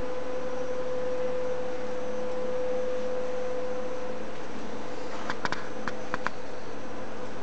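Steady hiss with a constant hum tone, and a few short, sharp ticks about five to six seconds in.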